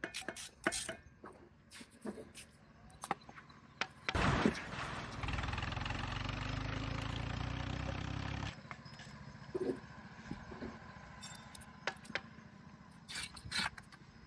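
Small clicks and taps of handling, then about four seconds in a motor starts and runs with a steady low hum for about four seconds before cutting off suddenly, followed by more scattered taps.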